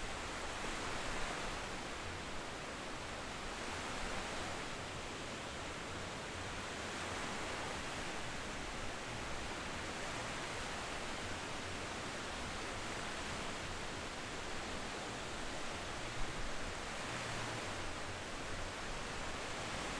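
Ocean surf washing steadily on a beach, swelling and easing every few seconds.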